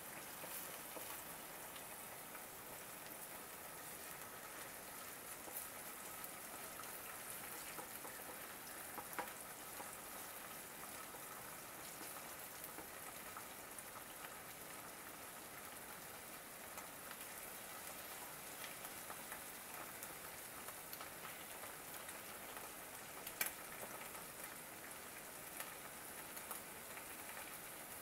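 Egg and noodles sizzling in hot oil in a Lodge cast iron skillet: a steady fine crackle with a few louder pops.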